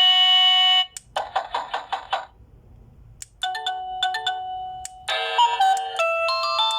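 Plug-in wireless doorbell receiver playing its electronic chime melodies, switching between several ringtones. A held tone cuts off just under a second in, a short pulsing chime follows, and after a brief pause a steady tone with short beeps gives way to a tune of stepping notes.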